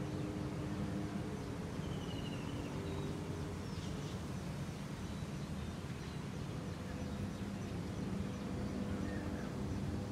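Steady distant city background noise from a high vantage, a low traffic-like hum with a few faint steady tones in it. A few faint short bird chirps and trills come through, two of them about two to four seconds in.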